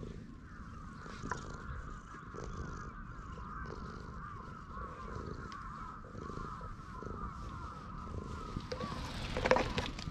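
Tabby cat purring steadily as it is stroked, under a wavering higher chirring sound. Near the end come a few loud rustles and knocks.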